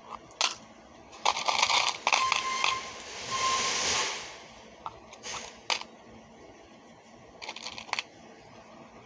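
Small oxidised gold-tone metal bead caps and charms clicking and clinking against one another and a plastic organiser box. A cluster of ringing clinks comes in the first couple of seconds, then a soft sliding hiss, then a few scattered clicks near the end.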